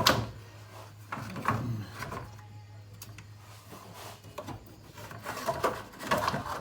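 Plastic cooling fan assembly scraping, rubbing and knocking against the radiator and surrounding parts as it is worked down into a tight engine bay, with a sharp knock at the start and bursts of scraping near the end.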